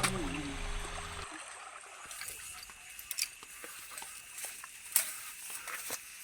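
A song's last notes end about a second in, leaving faint trickling river water with scattered small clicks.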